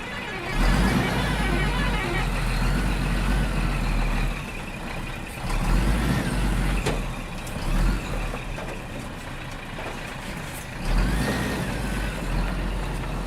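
Heavy vehicle engine running, with a deep rumble that swells and eases several times.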